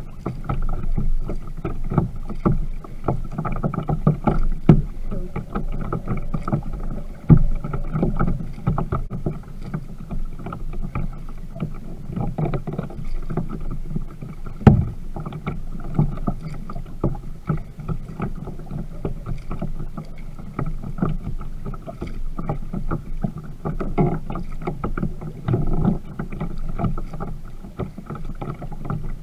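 Water splashing and lapping against the plastic hull of a Viking Profish Reload sit-on-top kayak as it is paddled, with frequent small knocks and splashes from the paddle strokes and hull. A few louder knocks stand out, about 5, 7 and 15 seconds in.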